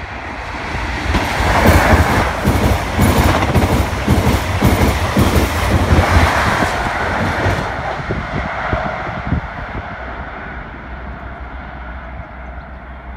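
A First Great Western InterCity 125 High Speed Train passing at speed: a deep rumble builds as it comes by, the Mark 3 coaches' wheels clatter over rail joints in a quick rhythm, and the sound fades away after about eight seconds.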